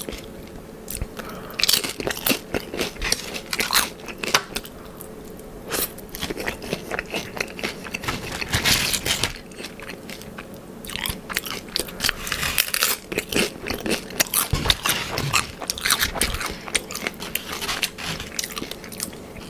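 Close-up chewing of a mouthful of Doritos nachos with chicken, cheese and sauce: many sharp crunches of the chips, with softer chewing between them.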